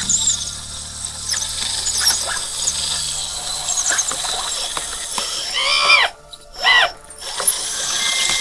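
Hydraulic pump of a 1/16 scale RC track loader humming. It stops briefly and starts again, then falls silent about four seconds in. High squeaky chirps run throughout, and two loud rising-and-falling squeals come near the end.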